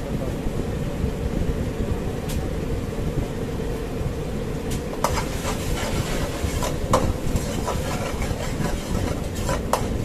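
Sauce bubbling in an aluminium kadai over a gas burner, a steady low rumble. From about five seconds in, a metal ladle stirs it, knocking against the pan in a series of sharp clicks.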